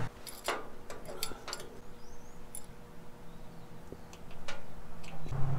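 Scattered light metallic clicks and taps of hand tools and parts being worked into place on the engine, about half a dozen spread over several seconds, over a faint steady hum.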